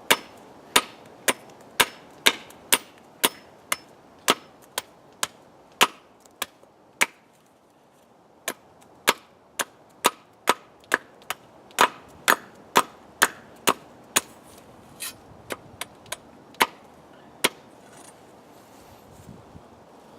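Machete chopping into a wooden stick to cut a point for a tent peg: sharp strikes about two a second, with a short pause partway through and a quicker run of lighter strikes before they stop near the end.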